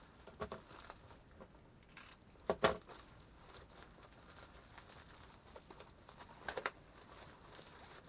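Plastic wrapping crinkling and rustling as it is pulled open by hand, with a few sharp clicks. The loudest click comes about two and a half seconds in, and a quicker pair comes near six and a half seconds.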